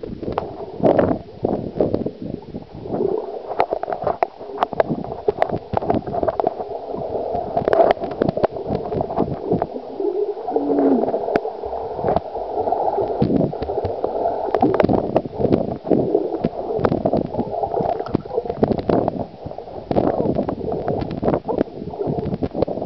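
Muffled underwater gurgling and sloshing of pool water, heard through a camera held below the surface, with frequent small knocks and clicks.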